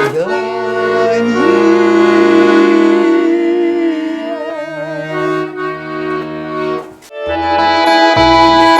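Garmon (Russian accordion) playing the closing bars of a song after the singer's last sung word. It holds sustained notes, drops out briefly around seven seconds in, then returns with full chords over bass notes.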